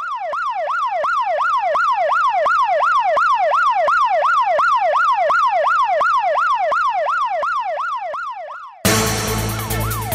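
Electronic emergency-vehicle siren in a fast yelp, its pitch sweeping up and down about three times a second. About nine seconds in, the sound cuts suddenly to louder street noise, with the siren fainter underneath.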